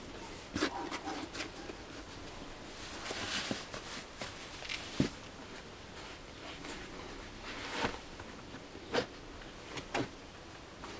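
Faint handling noise of leather boots and denim: rustling and scuffing as jeans are tucked into the padded collars of Timberland 6-inch nubuck boots, with a handful of short light taps scattered through.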